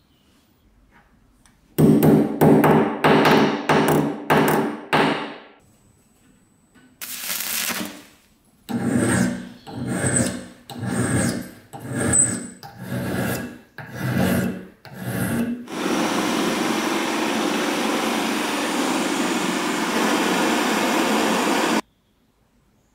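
Flat hand file rasping across the edge of a small steel wrench held in a bench vise: a run of quick strokes, then slower strokes about one a second. For the last six seconds a steady hissing noise takes over, then cuts off suddenly.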